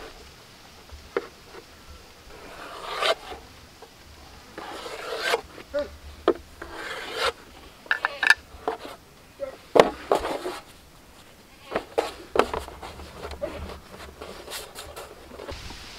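Knife cutting and scraping through a slab of chapati dough on a metal plate: a scatter of short scrapes and light taps of the blade on the metal, every second or two. Near the end, hands rubbing and pulling the dough strips apart on the plate.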